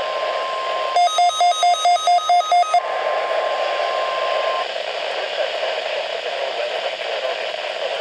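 Midland WR120B NOAA weather radio playing the weekly test through its speaker: the steady 1050 Hz warning alert tone over receiver hiss. About a second in, a rapid run of electronic beeps, about five a second, sounds for roughly two seconds. The tone cuts off a little past halfway, leaving only the hiss.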